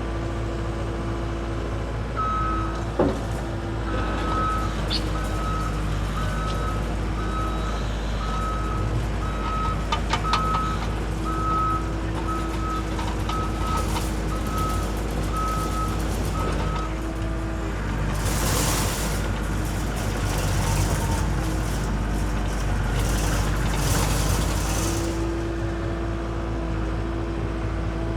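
Case TR320 compact track loader running, its backup alarm beeping about once a second for some fifteen seconds as it reverses. After the beeping stops, a spell of louder rushing noise comes from the machine working.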